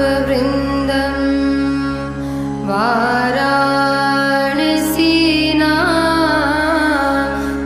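Indian-style background music: a steady low drone under a slow, gliding melody line.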